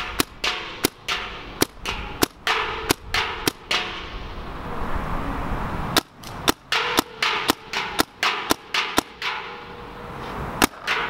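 Paintball markers firing strings of sharp shots. The first string, about three shots a second, is from a Dye DSR. About six seconds in, after a short pause, a second, faster string comes from another marker, and there is one more shot near the end.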